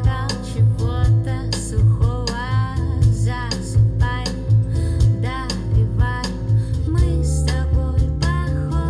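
A song with singing, deep bass and a steady beat of about two hits a second, played back through a pair of Amfiton 50AC-022 loudspeakers as a listening test. About seven seconds in, the bass line and backing change.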